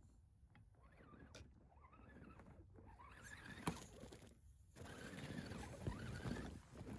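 RC scale crawler, a Traxxas TRX4-style Land Rover Defender 110, driving through snow: the small electric motor and gears whine, wavering up and down with the throttle, over the crunch of the tyres in snow. It gets louder over the last couple of seconds, with one sharp click just past the middle.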